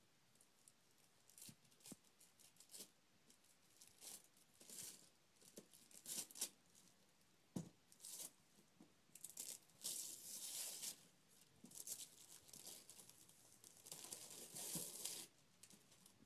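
Wrapping paper being torn and crinkled off a gift in short, irregular bursts, with a few longer rips lasting about a second.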